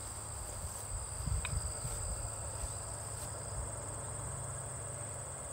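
Crickets trilling steadily at a high pitch, over a steady low rumble.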